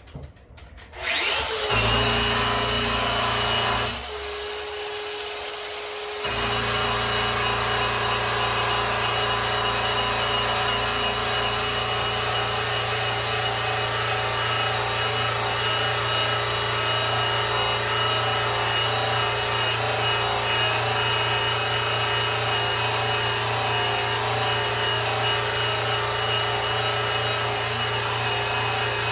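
Electric polisher running against a grand piano's case finish, a steady motor sound with rubbing. It starts about a second in, goes quieter for about two seconds shortly after, then runs on evenly.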